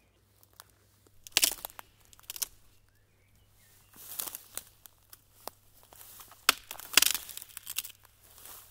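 Irregular crinkling and crackling noises made of sharp clicks and short rustles, in three loose clusters, over a faint steady hum.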